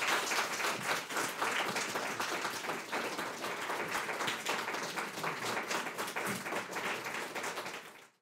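Audience applauding: many people clapping at once, fading out near the end.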